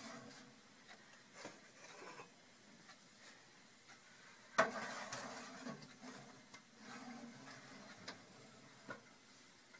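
Oven rack and baking pan clattering as risen bread dough is put into the oven: one sharp metal clunk about halfway through, with a few faint clicks and knocks around it.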